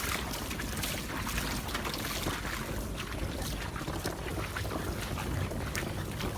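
Someone wading in waders through shallow floodwater, the water splashing and sloshing irregularly with each step, with wind buffeting the microphone.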